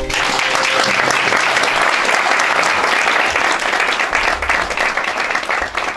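Audience applauding steadily after a violin and guitar piece ends, the last violin note fading under the clapping in the first second.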